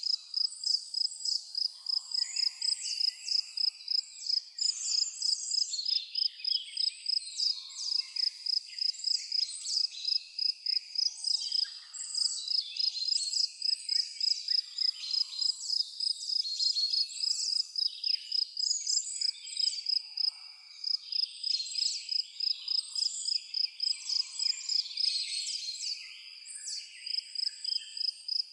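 A cricket chirping steadily at a high pitch, about four to five pulses a second, with several birds singing varied calls over it.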